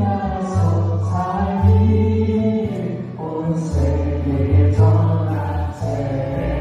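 Electric bass through a Fender Rumble bass amp playing held low notes that change about once a second, along with a recorded gospel song with singing.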